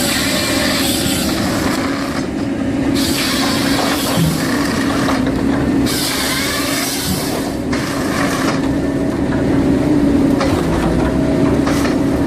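Heavy logging machinery with its engine running steadily under load, a constant hum, while bursts of hissing come and go every second or two.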